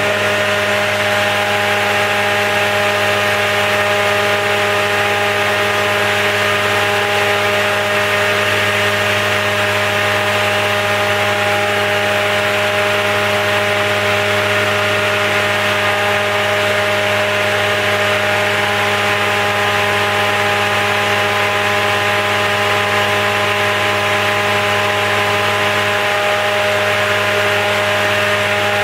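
Felder Format 4 spindle moulder running at 6,000 rpm with a 220 mm steel Profil 45 raised-panel cutterhead with carbide knives, giving a steady, unchanging whine of several tones over a rushing noise.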